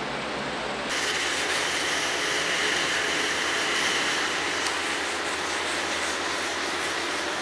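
Wooden bench top being sanded: a steady rasping hiss that starts abruptly about a second in and stops near the end.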